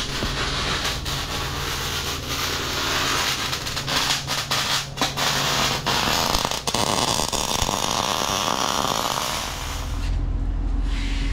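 Arc welding on steel tubing: a steady crackling hiss with many sharp pops. It stops about nine seconds in, leaving a steady low hum.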